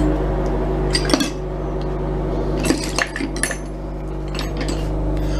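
Small metal parts of a cut-open ball bearing clinking as they are handled: several sharp, irregular clicks over a steady low hum.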